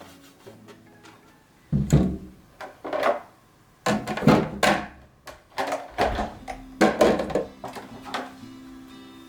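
Soft background music with a string of knocks and clunks, about a dozen, as objects are handled and set down, starting about two seconds in.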